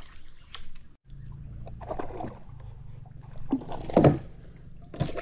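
A hooked fish thrashing and splashing at the water's surface beside a kayak as it is pulled in, with several splashes and the loudest about four seconds in.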